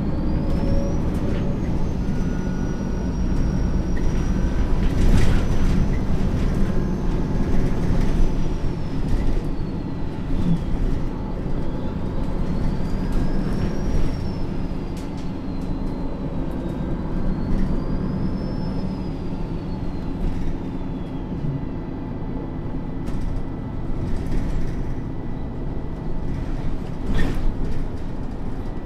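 MAN NG 323 articulated bus's straight-six diesel idling steadily, with a couple of short knocks and a faint high whine that glides slowly up and down.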